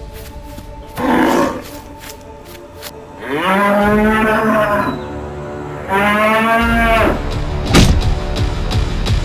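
Bull bellowing: two long, loud moos, the first about three seconds in and the second about six seconds in, over background music. A short noisy burst comes about a second in and a sharp hit near the end.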